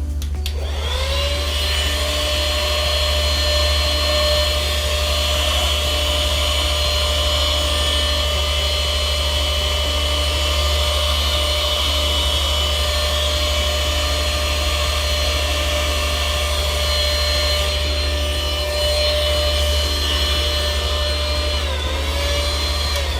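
Small handheld vacuum cleaner running, used to pick up loose static grass: a steady motor whine that spins up just after the start and sags in pitch near the end.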